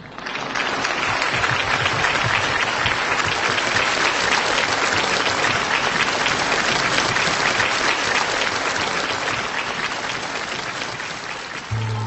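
A large concert-hall audience applauding steadily. Right at the end, a sustained organ-like keyboard chord comes in, the start of the song's introduction.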